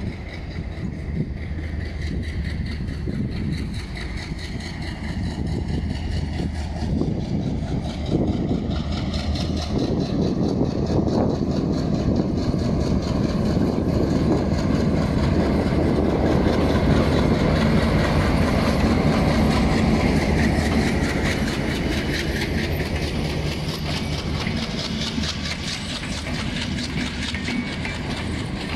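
Diesel locomotive hauling a passenger train approaching and passing, its engine humming deep and steady and growing louder to a peak about two-thirds of the way through, then the coaches rolling by with wheels clattering over the rails.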